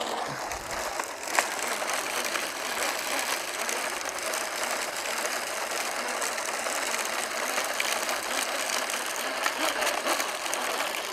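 Hand-cranked broadcast spreader spinning out granular lawn fertiliser, its gears and spinner making a steady, fast ticking rattle that starts suddenly.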